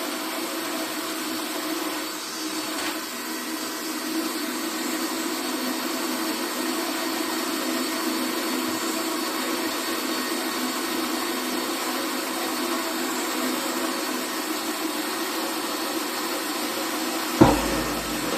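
Power drill running in low gear, driving a step drill bit into the metal shell of a lawn roller: a steady motor whir with the bit cutting into the metal. A single sharp knock comes near the end.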